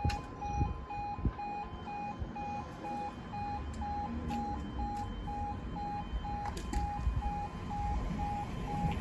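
Level crossing's two-tone yodel alarm warbling between a low and a higher tone about twice a second while the barriers come down, warning road users of a closure. It cuts off near the end, once all the barriers are lowered.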